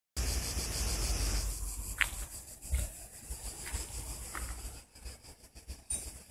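An insect making a high, steady buzzing drone that breaks into quick pulses near the end. A low rumble runs underneath, and a few short high chirps sound in the middle.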